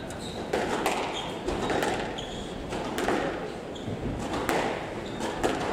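A squash rally: the rubber ball is smacked by rackets and against the court walls in a quick, irregular series of sharp hits, with brief shoe squeaks on the hardwood floor, echoing around a large hall.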